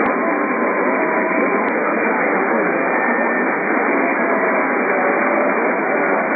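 Steady radio static hiss with faint drifting whistles in it, and a small click right at the start and another a little under two seconds in.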